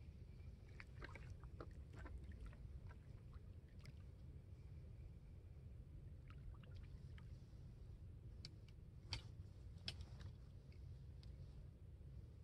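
Near silence: a low steady rumble with a scattering of faint clicks and taps, the two sharpest about nine and ten seconds in.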